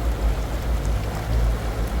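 Steady rush of river water under a heavy low rumble.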